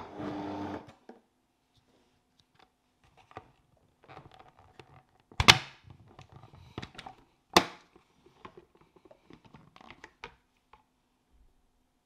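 Blender motor running, cutting off about a second in. Then scattered hard-plastic knocks and clunks from handling the blender jar and lid, two of them much louder near the middle.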